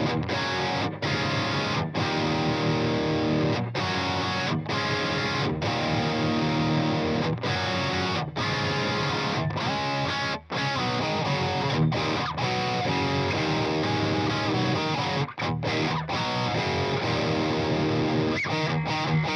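Electric guitar with a Monty's Bethnal Green bridge pickup played through a Fryette amp boosted by a Boss OD-200: overdriven chords and riffs, broken by short, sharp stops.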